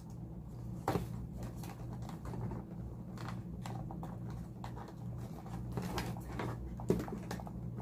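Keystone XL300 Super 8 movie camera being handled: scattered small clicks and taps, a sharper click about a second in and another near the end, over a steady low hum.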